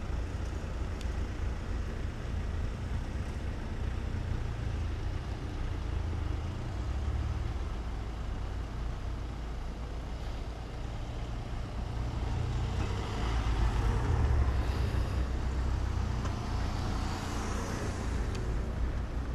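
Cars driving along a street, with a steady low rumble of engines and tyres. A vehicle passes closer and louder about two-thirds of the way through.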